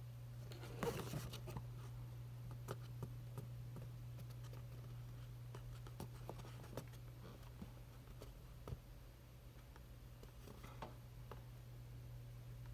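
Hands handling and turning a cardboard toy box: faint scattered taps and rubs of fingers on the cardboard, with a brief louder rustle about a second in, over a steady low hum.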